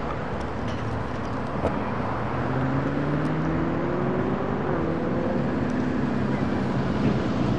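Road traffic: a motor vehicle accelerating, its engine note rising steadily in pitch for a few seconds over a steady background of traffic noise.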